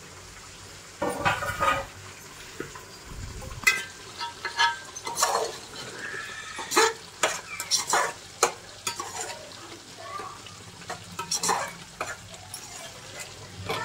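A metal spoon scraping and clinking against a metal cooking pot as chicken is stirred in its spiced marinade, with irregular strokes over a steady sizzle of frying.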